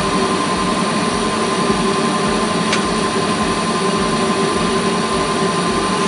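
Furnace draft inducer motor, freshly replaced, running with a steady hum. A single short click sounds near the middle.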